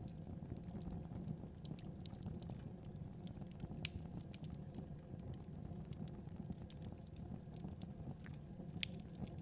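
Wood fire burning with a steady low rumble and scattered sharp crackles and pops, a few louder ones about four seconds in and near the end.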